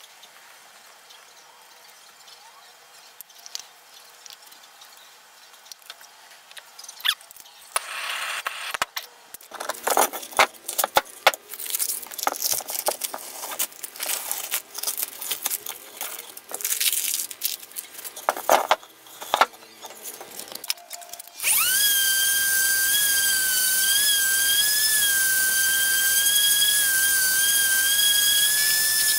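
Plastic and tape crinkling and crackling as they are peeled off a resin-filled wood slab. About two-thirds of the way in, an electric random orbital sander starts and runs with a steady high whine as it sands the slab.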